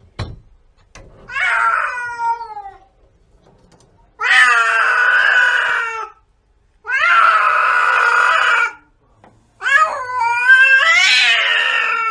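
Domestic cat yowling: four long drawn-out calls of about two seconds each, the first sliding down in pitch and the last wavering up and down. A short knock comes just before the first call.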